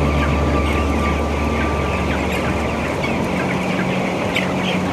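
Dense, continuous peeping and clucking of a large flock of 22-day-old broiler chickens, over a steady low hum from the poultry house's big exhaust fans.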